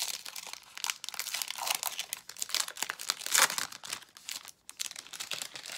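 Plastic wrapping crinkling and tearing as a box of baseball trading cards is opened: a dense run of crackles, with the loudest rip about three and a half seconds in.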